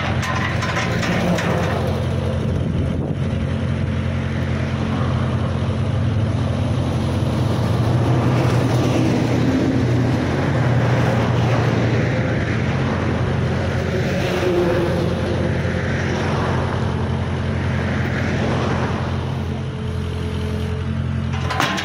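Case Super K backhoe's diesel engine idling steadily.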